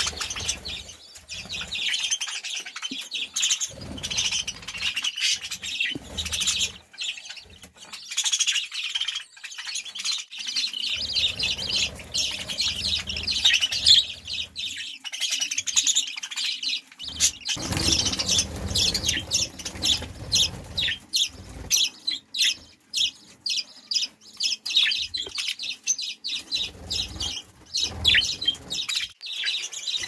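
Budgerigars chattering in an aviary: a continuous stream of rapid high chirps and warbles. Low rumbles and bumps from the camera being handled come in twice, around the middle.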